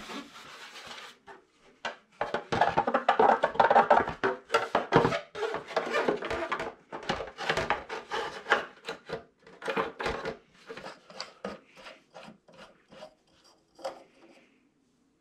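A cloth rubbing and squeaking over a plastic motorcycle front fender, followed by the fender clicking and knocking against the fork legs as it is fitted into place.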